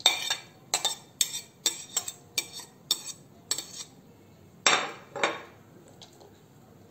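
Stainless steel spoon scraping and tapping against a ceramic plate and bowl: a quick run of light clinks, then two louder knocks about five seconds in.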